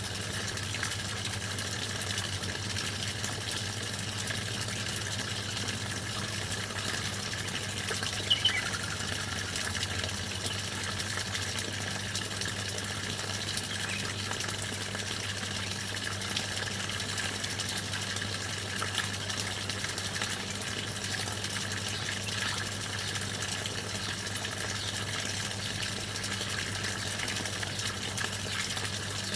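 Steady rush of running water with a low, constant hum under it. Songbirds give one short, loud chirp falling in pitch about eight seconds in, and a few faint chirps after it.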